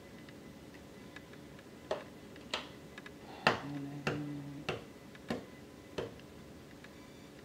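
Eggshell tapped again and again against the rim of a ceramic bowl, about seven sharp taps roughly every half second, cracking the egg. A short low hum comes partway through.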